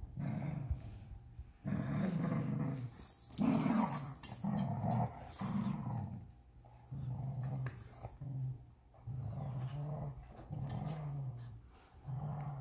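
Two Vizslas, an adult and a puppy, play-growling during a tug of war over a plush toy. The low growls come in repeated short bouts of about half a second to a second, with brief pauses between them.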